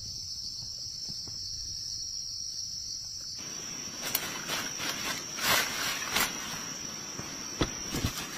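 Insects droning steadily at one high pitch. About three and a half seconds in, a rustling, crackling noise with several sharp clicks and snaps joins in.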